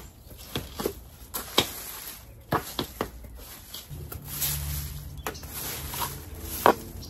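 A long-handled garden hoe chopping and scraping at soil and leaf litter: a string of irregular sharp strikes, the loudest near the end. A low hum rises in the background a little past halfway.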